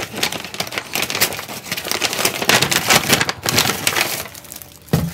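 Plastic and paper shopping bags rustling and crinkling as groceries are handled and pulled out, a dense crackle of many small clicks, with a short thud near the end.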